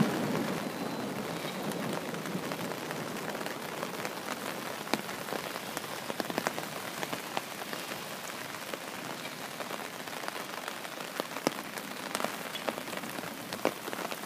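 Steady rain: an even hiss with scattered sharp taps of drops landing close by.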